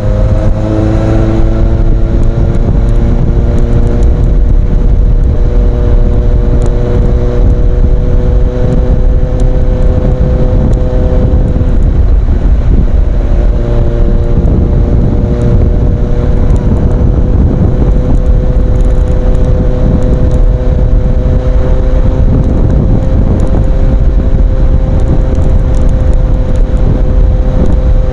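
Kawasaki Z800's inline-four engine running through an Ixil aftermarket exhaust, holding a fairly steady pitch that drifts slowly up and down, with a short dip and change in tone about twelve seconds in.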